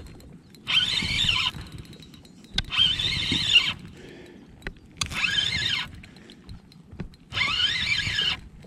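Fishing reel cranked in four short bursts, about a second each, its gears whining in pitch that rises and falls with the winding speed, while a hooked bass is reeled in. A few light clicks come between the bursts.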